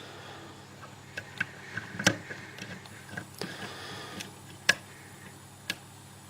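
Light metallic clicks and ticks of a hook pick and tension wrench working in the pin-tumbler cylinder of an old Lockwood deadlock, coming irregularly about nine times, the sharpest about two seconds in and near the five-second mark.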